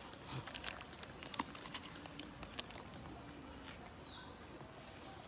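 Light rustling and crinkling taps of a plastic snack packet in a macaque's hands, with a short high two-part chirp a little after three seconds in.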